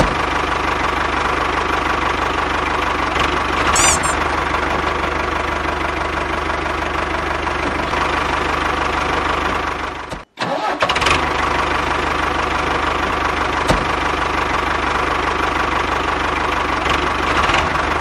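Steady engine-like running drone, unbroken except for a brief cut-out about ten seconds in.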